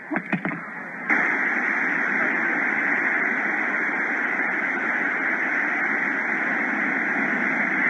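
Steady rushing noise of sea surf and wind at a rocky shore, starting suddenly about a second in after a few short clicks.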